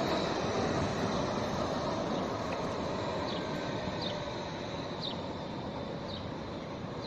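Crotram TMK 2200 low-floor tram running along street track, a steady rumble of wheels on rail that slowly fades as it moves away. A few short high chirps come about once a second in the second half.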